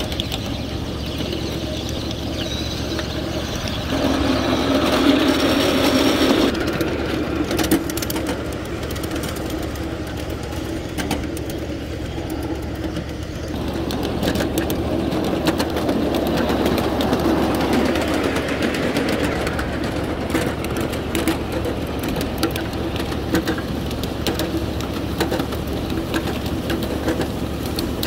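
7.5-inch-gauge ride-on train running along its track: a steady low hum with the wheels clicking over the rail joints. It grows louder for a couple of seconds about four seconds in.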